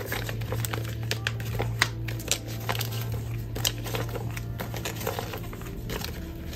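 Crinkling and light clicking of clear plastic binder envelopes being handled and flipped around, with a low steady hum underneath.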